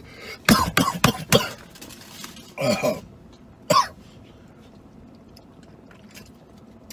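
A man coughing: a quick run of short coughs about half a second in, then a longer cough or throat-clearing near three seconds and one more short cough about a second later.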